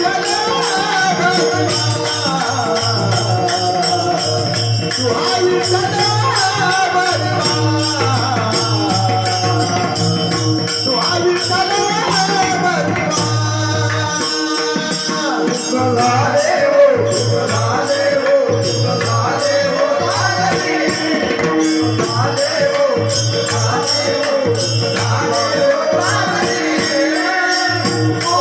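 Devotional bhajan music: a gliding melody over a steady drone, with a drum pattern and small jingling cymbals keeping a fast even beat.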